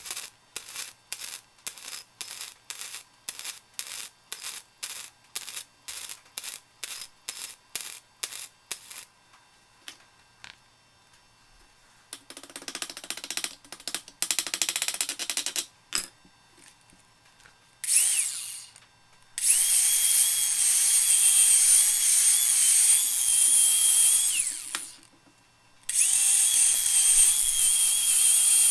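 Hand-tool ratcheting strokes, about two a second, for several seconds. Then a power tool runs in long loud bursts with a high hiss and a steady whine, stopping briefly near the end before starting again.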